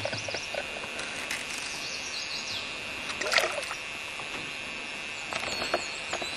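Outdoor ambience from a canoe on the water: a steady hiss of water with light clicks and knocks against the hull, a faint steady high tone, and a few faint chirps.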